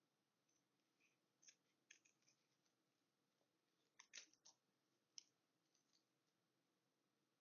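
Small scissors snipping fabric: faint, irregular sharp clicks, with a louder cluster of snips about four seconds in.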